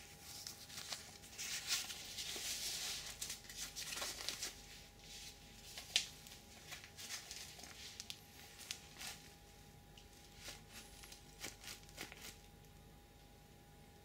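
Goalkeeper gloves handled close up: fabric and latex rustling and rubbing with scattered small clicks and taps. It is busiest in the first few seconds, has one sharper click about six seconds in, and stops about twelve seconds in.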